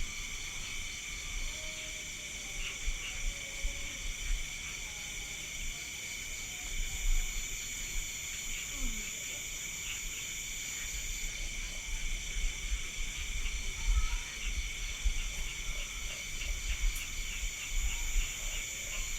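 Night insect chorus of crickets and other insects chirping steadily at several high pitches, one with a fast pulsing trill. A low, uneven rumble sits underneath.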